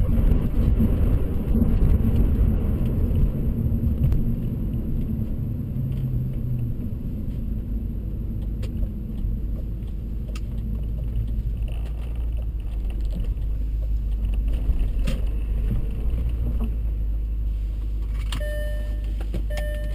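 Motor vehicle driving: a steady low engine-and-road rumble with scattered rattles and knocks. It is loudest in the first few seconds. Near the end a short tone starts repeating.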